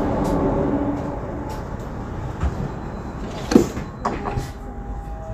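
Ikarus 412 city bus running, its engine a steady hum, with a sudden loud burst a little past halfway, a few knocks after it, and a steady high tone starting about four seconds in.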